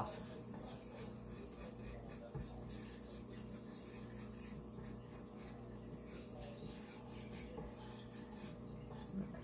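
Faint scratchy strokes of a small wax brush working black wax onto a chalk-painted wooden drawer, over a low steady hum.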